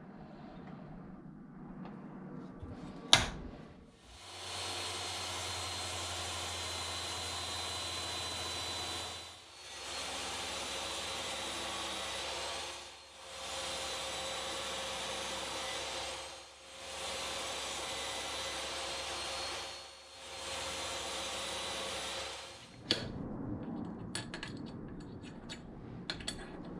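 Handheld electric power tool running steadily at full speed, in several stretches of about three to five seconds each, with a high whine over its motor noise. A sharp click comes just before it starts, and a few light knocks follow after it stops.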